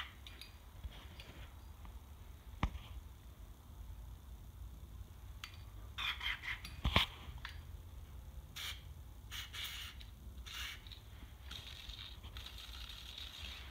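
A few short hisses of an aerosol spray lube being sprayed into the dry pull-start gear of an old Simplicity walk-behind tractor engine, the gear that squeals for lack of lubrication. Faint clicks and handling noise come between the hisses.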